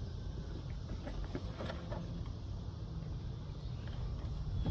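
Low steady rumble with a few faint, indistinct sounds over it; no siren is sounding.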